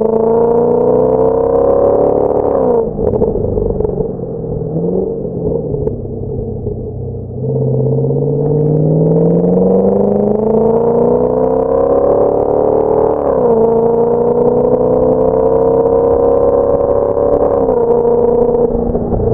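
Chevrolet Camaro SS's 6.2-litre V8 running hard on a chassis dyno through an aftermarket A JUN rear exhaust. The revs climb, then fall away about three seconds in. From about seven seconds in they climb again in a long pull, dipping sharply as it shifts up about thirteen and seventeen seconds in.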